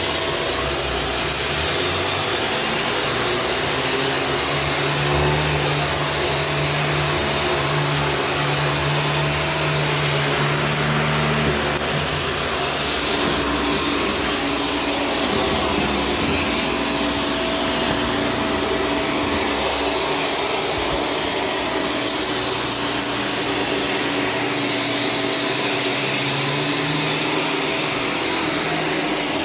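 Shark Stratos vacuum cleaner running without a break: a steady loud rush of air with a constant whine over it. The lower hum shifts in pitch now and then.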